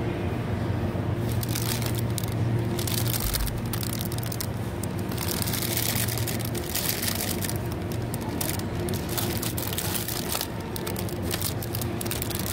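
Clear plastic bags of chili peppers crinkling and crackling as they are handled, over a steady low hum.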